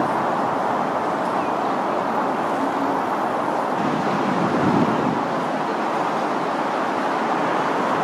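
Steady hum of city road traffic, swelling briefly about halfway through.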